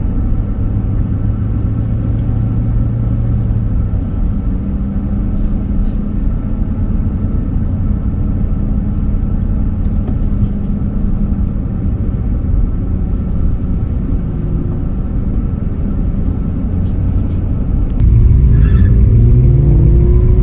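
A motor vehicle running with a steady low rumble. About eighteen seconds in it gets abruptly louder, with engine pitch rising and falling.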